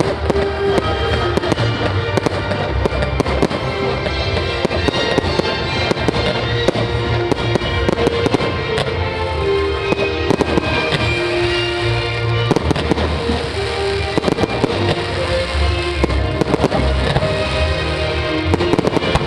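Fireworks bursting and crackling in quick succession throughout, over background music with a steady bass.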